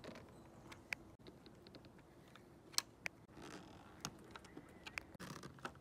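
Faint, scattered clicks and light ticks from a hand screwdriver's metal Torx bit against the screws and aluminium roof side rail as the rail's mounting screws are tightened, with one sharper click about three seconds in.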